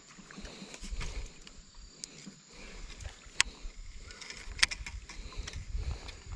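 Baitcasting reel being wound in during a lure retrieve, with sharp mechanical clicks about three and a half and four and a half seconds in. A faint steady insect drone runs underneath.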